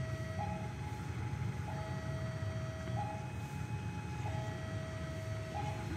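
Two-tone electronic warning alarm, switching back and forth between a higher and a lower tone about every 1.3 seconds, over a steady low rumble.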